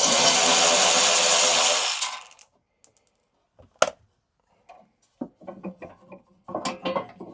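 Power driver with a T30 Torx bit running for about two seconds as it spins out a bolt of the compressor's regulator assembly, then stopping. A sharp click follows about four seconds in, then light clatter of the loosened parts being handled.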